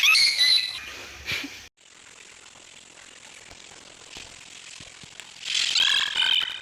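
Puppy squealing and crying in high, wavering, fluttering cries: a bout at the start, then only a faint hiss, then another bout near the end.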